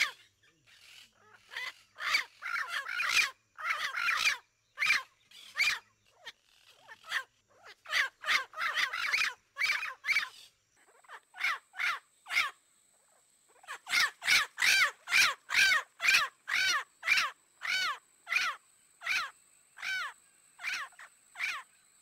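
Parrots squawking in a long series of short calls, crowded and overlapping in the first half, then a regular run of about two calls a second.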